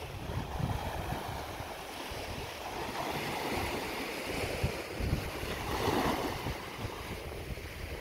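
Gentle sea waves washing onto a sandy beach, swelling a couple of times, with wind rumbling on the microphone.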